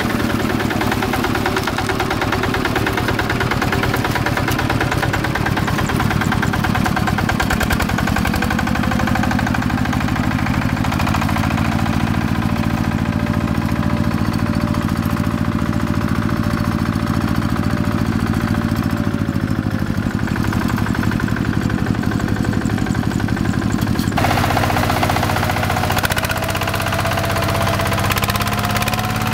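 Single-cylinder diesel engine of a two-wheel hand tractor running steadily under load as it drags its cage wheels and leveling board through a flooded rice paddy. The note shifts slightly in pitch now and then.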